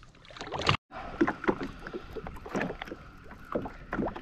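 Small waves slapping and lapping irregularly against the hull of a Sea-Doo Fish Pro jet ski. The sound cuts out completely for a moment just under a second in.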